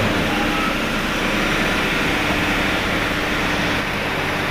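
Diesel engine of heavy construction equipment running steadily.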